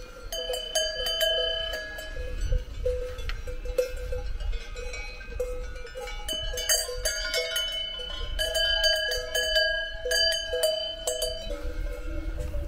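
Several cowbells on grazing cows clanking irregularly, bells of different pitches ringing over one another. The clanking comes in busy clusters in the middle and later on, then thins out near the end.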